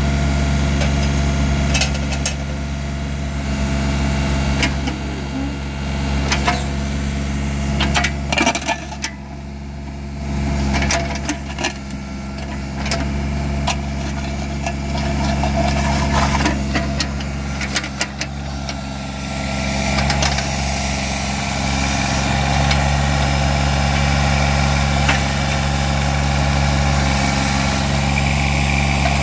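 John Deere 855 compact tractor's three-cylinder diesel engine running, with scattered sharp knocks and clicks through the first two-thirds. It eases off around a third of the way in, then runs louder and higher from about two-thirds of the way through.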